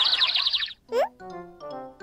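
Cartoon sound effects and children's background music: a hissing clatter with a fast run of chirps stops under a second in, a quick rising whistle-like glide follows, then light, bouncy children's music notes.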